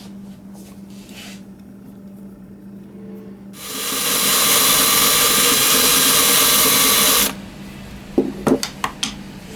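Power drill countersinking the screw hole in a Morse key paddle: the drill spins up about three and a half seconds in, runs steadily for about four seconds and stops abruptly. A few small sharp clicks follow near the end.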